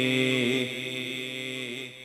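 A man singing an Urdu devotional kalam, drawing out the last word of the line 'Shabbir pe jo aankh kabhi tar nahin hoti' in a long held note. The note softens after about half a second and breaks off briefly near the end.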